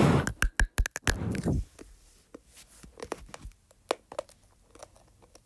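Hard Polo mint bitten and crunched between the teeth: after a short burst of noise at the start, a quick run of sharp cracks about half a second in, then scattered softer crunches.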